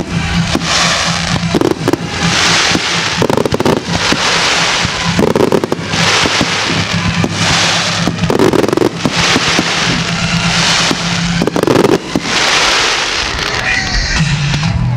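Aerial fireworks going off: rapid bangs and crackling bursts, one after another.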